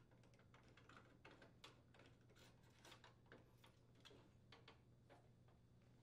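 Faint, irregular small clicks of a Phillips screwdriver turning screws into the metal side bracket of an oven door.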